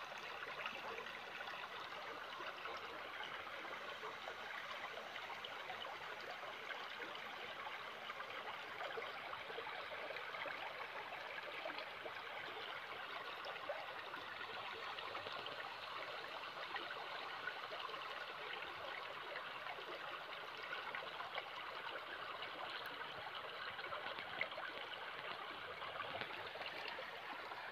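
Shallow stream running steadily over a pebble bed.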